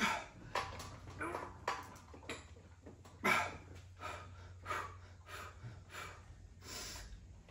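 A man breathing hard in short, forceful gusts, about one every half second to second, while pressing a loaded barbell through a set of incline bench presses. A low steady hum runs underneath.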